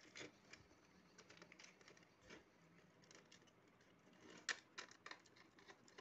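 Faint scattered clicks and light scraping as a stripped copper wire is bent and fitted onto a brass terminal of a switch in a plastic switchboard. A few sharper clicks come in the second half.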